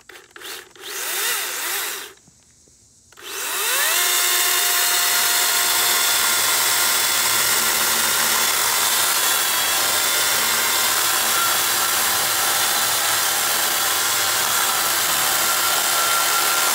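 Craftsman V60 brushless cordless chainsaw revving in a couple of short bursts, then after a brief pause spinning up to a steady high whine as it cuts through a pine log, chain and wood chips rasping under the whine.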